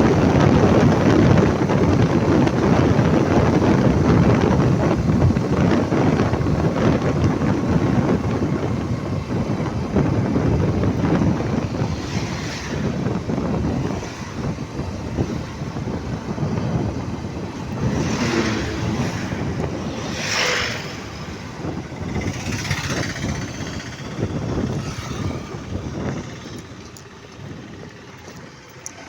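Road traffic noise with wind buffeting the microphone: a steady low rumble, and several vehicles swishing past in the second half, while the overall noise fades away near the end.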